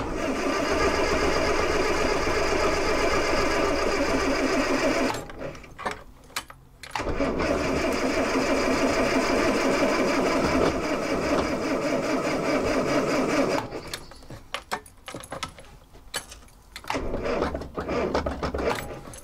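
Ex-military 24-volt Land Rover's starter motor cranking the engine in two long attempts of about five and six seconds with a pause between, the engine not catching. The batteries are run down, and the owner goes on to charge them.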